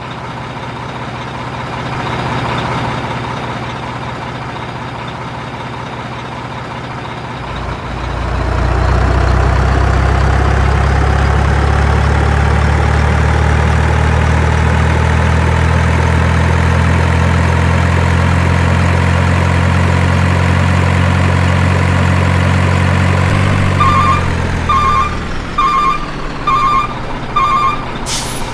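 Heavy vehicle engine running, growing louder about a quarter of the way in and then holding steady under a slowly rising whine. Near the end a reversing alarm beeps five times, about once a second.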